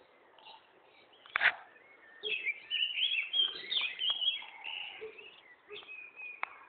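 Songbirds chirping and warbling in quick, varied high notes, with a sharp knock about a second and a half in.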